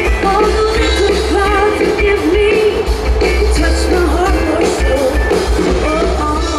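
Live rock band playing: a singer's voice over electric guitars, bass, drums and keyboard.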